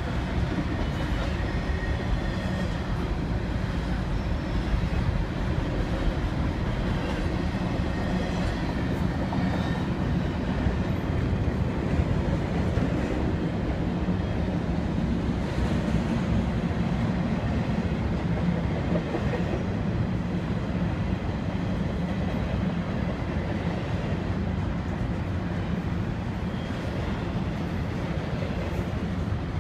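Double-stack intermodal freight train's container well cars rolling past, steel wheels rumbling steadily on the rails.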